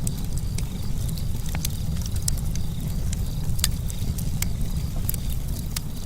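Campfire crackling: irregular sharp pops and snaps from burning wood over a steady low rumble.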